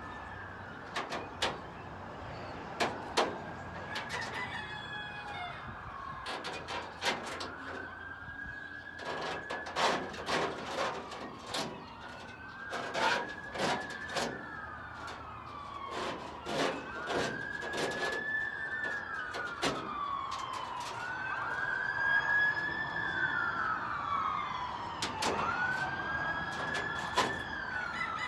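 Sharp wooden knocks and bangs from boards of a rabbit hutch floor being pried and torn out, with a siren wailing up and down in the background, a rise and fall every three to four seconds.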